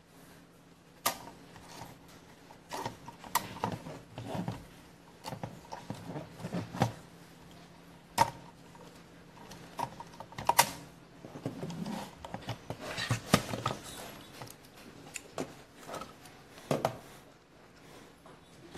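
Irregular sharp clicks and knocks of hard plastic parts being handled: the drive-wheel module and chassis of a robot vacuum being worked loose and lifted out. A faint steady hum runs underneath.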